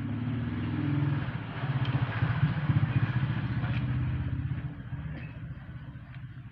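A motor vehicle's engine passing by, swelling over the first couple of seconds, staying loud through the middle and fading away after about four and a half seconds.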